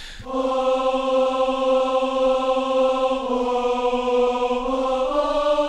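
Synthesized 'Concert Choir' patch from Ardour's built-in patch selector, played from the on-screen keyboard: a held 'aah' choir tone with a vocal-like tremolo. The note shifts pitch twice, about three seconds in and again near the end.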